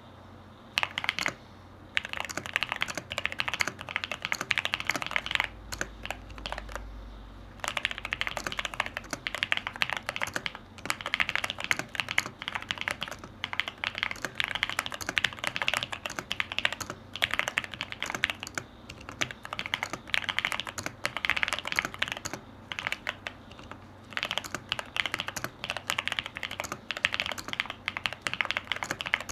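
Mechanical keyboard with AKKO V3 Lavender Purple Pro switches being typed on quickly: rapid runs of key clicks and clacks in bursts of a few seconds, broken by several brief pauses.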